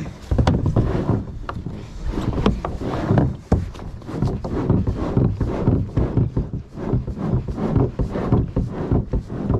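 Kayak being launched from the bank: the hull scraping and bumping against the shore and shifting in shallow water, with many irregular knocks.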